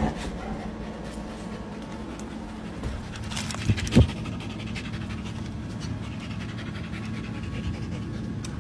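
An excited pet breathing fast and heavily close to the microphone, its "happy breathing", with a sharp knock about four seconds in.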